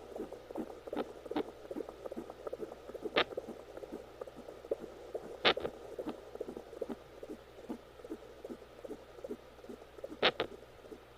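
Fetal heartbeat as a fast, steady pulsing through a fetal doppler, broken by a few sharp, loud pops a few seconds apart, about three seconds in, five and a half seconds in and near the end: the unborn baby hiccuping.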